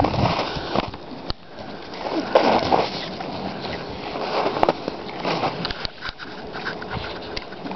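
English bulldog snuffling and breathing noisily close to the microphone as it noses through snow, in irregular bursts, with a couple of sharp knocks.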